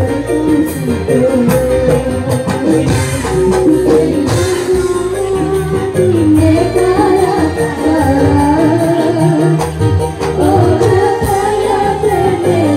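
Live jaranan accompaniment music: drum and percussion strokes under a wavering, continuous melody line.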